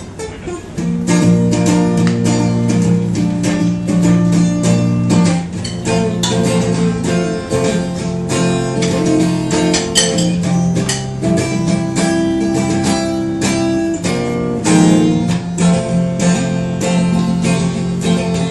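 Amplified semi-hollow-body electric guitar playing a strummed instrumental break, getting louder about a second in.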